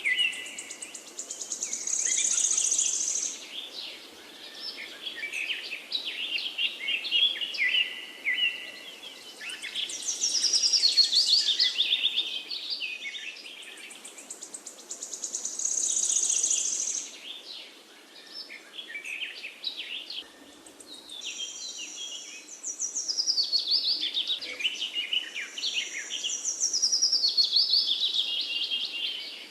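Several songbirds singing in a forest chorus: overlapping phrases of quick trills and whistles, one after another every few seconds, over a faint steady background hiss.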